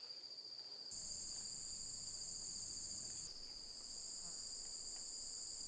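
Steady insect chorus in tropical forest: a continuous high-pitched shrill on two steady notes over faint forest background, growing a little louder about a second in.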